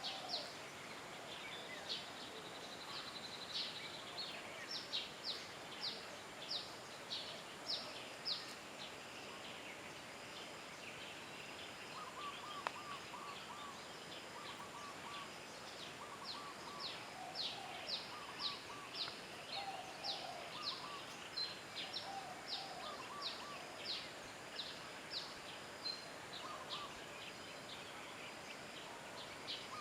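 Birds calling over a steady background hiss: a long run of short, high, downward-sliding notes, joined from about the middle by groups of lower, quicker notes. One sharp click near the middle.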